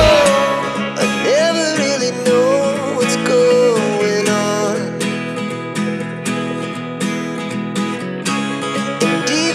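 Background song with a strummed acoustic guitar and a singing voice carrying the melody in the first few seconds; the deep bass drops out just as it begins.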